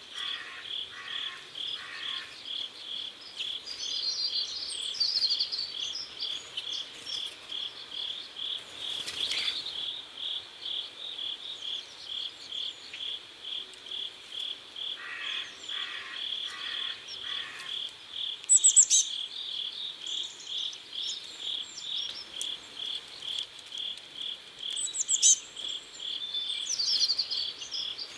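Crickets chirping in a steady, even rhythm of about two to three chirps a second, with a second insect calling in lower pulses at times. Short bird calls come in now and then and are the loudest sounds, about two-thirds and nine-tenths of the way through.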